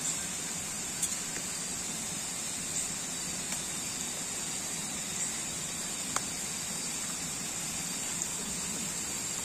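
Steady hiss of a portable butane camping stove burning under a pot of simmering stew, with a few light clinks of a metal ladle against the pot as it is stirred.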